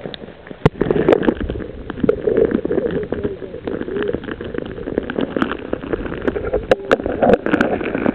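Muffled sloshing and gurgling of stream water around a camera dipped under the surface, with many small knocks and clicks as it moves. It gets louder about a second in, as the camera goes under.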